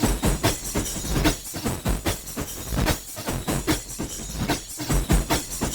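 Drum break loop played through extracell's Exchanger plugin, which splits the signal into many sine, square or saw wave partials. It comes out as a dense run of rapid hits with a glittery, crystalline texture.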